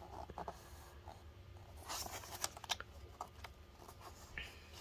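Paper pages of an instruction booklet being handled and turned by hand: faint rustling and crinkling, busiest about two seconds in.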